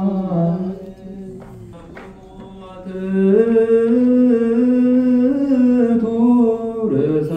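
Ethiopian Orthodox liturgical chant, sung in long held notes that slide between pitches. It is softer for the first few seconds and grows louder from about three seconds in.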